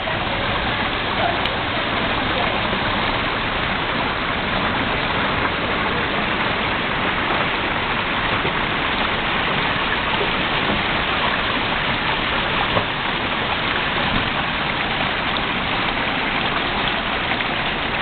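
Small garden waterfall spilling steadily over rocks into a pond: a constant, even splashing.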